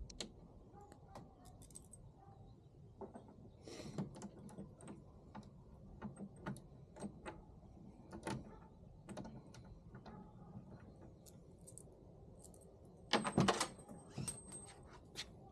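Scattered light clicks and taps of hand tools and small hardware being handled on a tailgate, with a brief louder clatter near the end.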